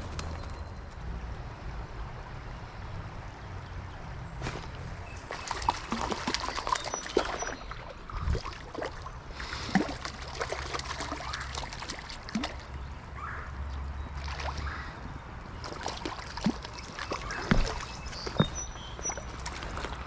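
Creek water trickling and sloshing, with scattered clicks and knocks close to the microphone.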